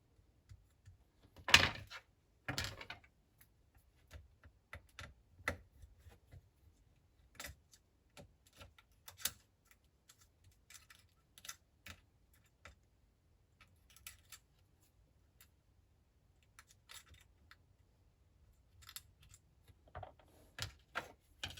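Scattered small clicks and taps of tools and small parts being handled while a smartphone is reassembled, with two louder knocks about one and a half and two and a half seconds in and a quick run of clicks near the end.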